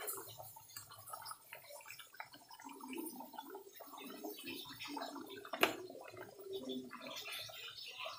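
Thick gravy with stuffed pointed gourds bubbling at a boil in a pan, an irregular glugging of bursting bubbles. A single sharp click comes a little past halfway.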